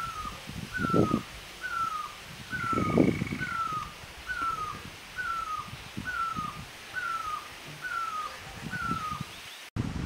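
Great barbet calling: a steady series of short down-slurred notes, about three every two seconds. Low rumbles of wind on the microphone come and go beneath it, loudest about one and three seconds in.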